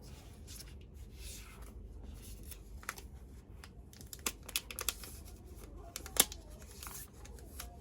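Packaging being handled and opened: rustling and tearing with scattered small clicks and taps, the sharpest click about six seconds in.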